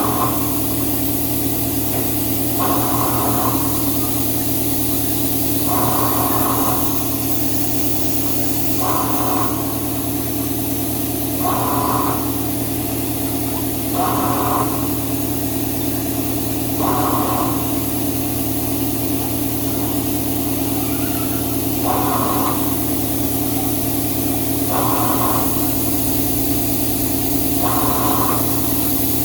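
Steady hum of running shop machinery, with a higher tone that swells and fades about every two and a half to three seconds.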